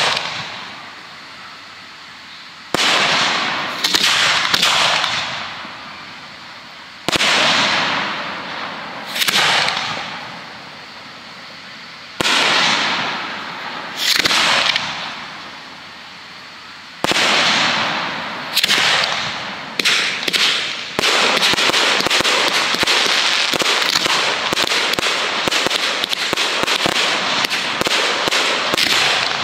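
Aerial fireworks going off in a display. For the first half there is a sudden bang every two to three seconds, each trailing off over a second or two. Then the bangs come faster and merge into a dense, continuous barrage of crackling reports over the last third.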